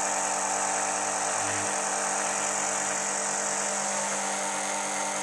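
Buon Vino Mini Jet electric wine filter pump running with a steady hum, pushing rosé through the filter pads on a second pass.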